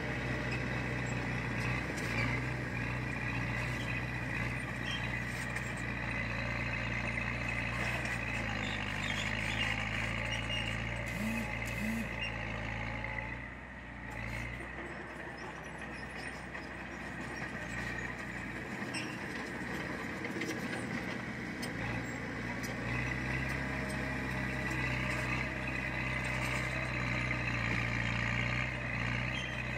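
Heavy diesel engine of construction machinery running steadily, easing off about halfway through and picking up again near the end.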